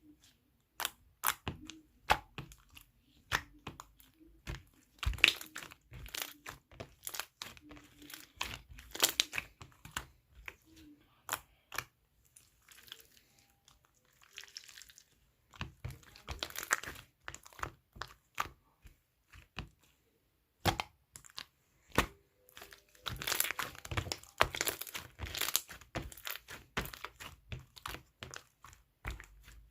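Slime being squished and pressed by hand, making irregular sharp clicks and crackling pops, with a quieter stretch in the middle and a dense run of pops near the end.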